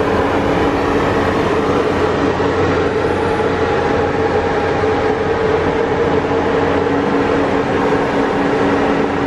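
Railway locomotive running steadily close by: a loud, even machine hum with several held tones and no change in pitch.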